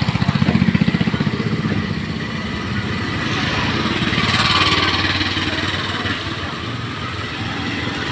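A motorcycle engine running close by with a fast, even pulse, strongest in the first two seconds. Street traffic noise swells and fades around four to five seconds in.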